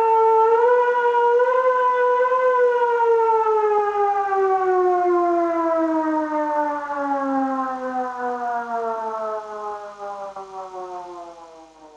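Civil defense siren sounding one long wail that rises slightly over the first couple of seconds, then slowly winds down in pitch and fades away near the end.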